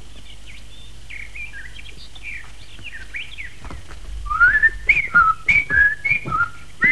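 A person whistling a tune in short gliding notes, faint at first and much louder from about four seconds in.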